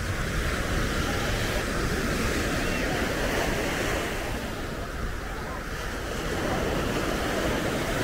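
Small sea waves breaking and washing up a sandy shore: a continuous surf wash that swells and eases as the waves come in.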